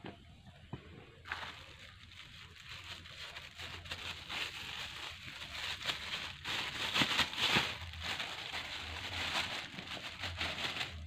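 A thin plastic bag crinkling and rustling as grated coconut is shaken out of it into a basin, setting in about a second in and loudest about seven seconds in.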